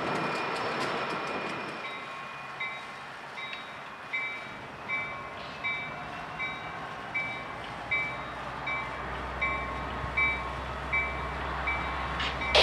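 Railroad bell dinging steadily, about four strokes every three seconds. Under it, a low diesel rumble builds from about the middle as a train approaches. There is a sharp loud bang at the very end.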